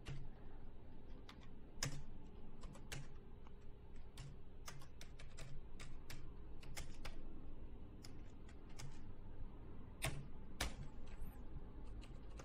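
Typing on a computer keyboard: irregular keystrokes coming in short runs with pauses between them.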